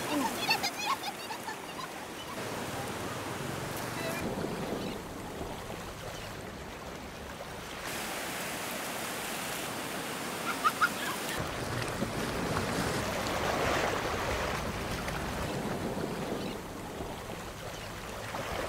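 Ocean surf breaking and washing in over the shallows: a steady rush of water noise whose level and character change abruptly a couple of times.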